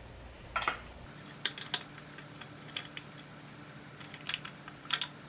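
Scattered light clicks and taps of small metal parts and bolts being handled while fitting a throttle body to an intake manifold, with a faint steady hum that comes in about a second in.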